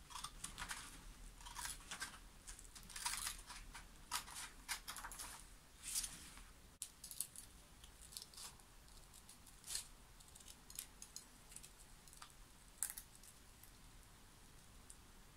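Hand tool scraping and tapping on the headstock of a roasted maple guitar neck during shaping. Faint, irregular short scraping strokes and clicks, close together for the first six seconds or so, then sparser.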